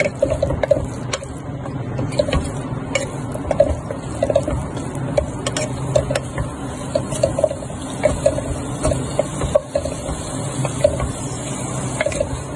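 Wooden spatula stirring chicken strips around a pot, with irregular scrapes and taps against the pan over a steady sizzle.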